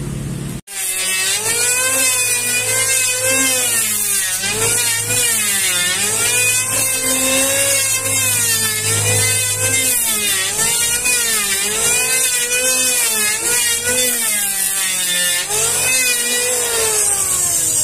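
Electric hand planer cutting a wooden board, its motor pitch dropping under load on each stroke and rising again between, about once a second, over a steady high hiss from the cutter.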